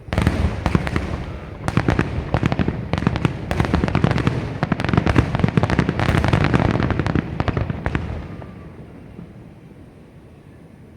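Aerial fireworks going off in a dense, rapid run of sharp bangs and crackles for about eight seconds, then dying away to a fading rumble.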